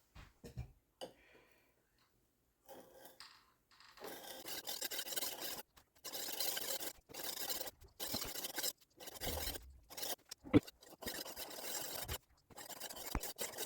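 Knife blade drawn across a 600-grit diamond sharpening stone: a series of gritty scraping strokes, about one a second, after a quieter start. One sharp click comes partway through.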